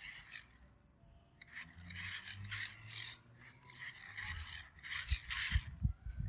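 Toy RC rock crawler scraping and grinding its way over a rough track in irregular rasping bursts, with a few knocks near the end.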